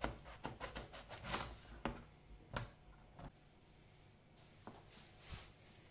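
Light clicks and knocks of kitchen utensils and dishes being handled during food preparation, a quick run of them in the first three seconds, then a few softer taps and a couple of brief rustles.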